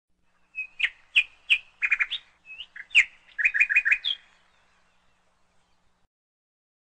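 Small bird chirping: single sharp chirps, then quick runs of four or five, stopping about four seconds in.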